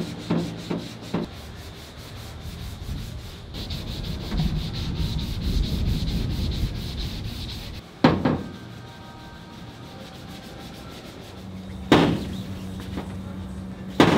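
Sandpaper on a hand sanding block rasping back and forth over the primed front fender flare of a 1969 Porsche 911 during block sanding for paint. A few sharp clicks come in the first second, and single sharp knocks about eight and twelve seconds in.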